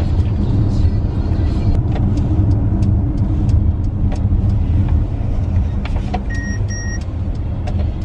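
Road noise inside a moving car's cabin: a steady low rumble of engine and tyres. About six and a half seconds in come two short electronic beeps.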